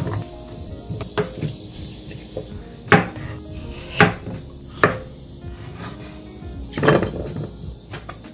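Kitchen utensils and dishes knocking and clattering, several sharp knocks at irregular intervals, over soft background music.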